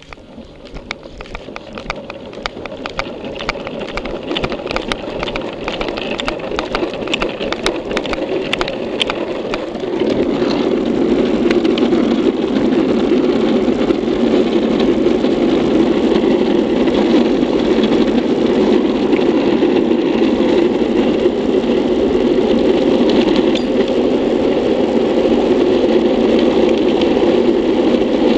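Classic luge board's wheels rolling fast on asphalt, a roar that builds as the board gathers speed, with rapid clicks through the first several seconds. About ten seconds in it jumps louder and then holds a steady roar.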